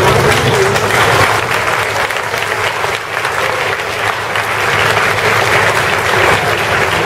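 A crowd applauding, a steady dense clapping.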